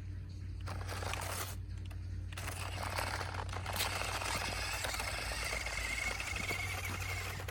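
Remote-control truck's small electric motor whining and its tyres scraping over the ground, briefly about a second in, then again from about two and a half seconds on. A steady low hum runs underneath.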